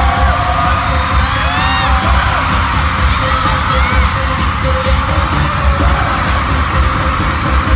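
Live K-pop concert music, loud, with a heavy bass beat and singing, picked up from the audience in an arena.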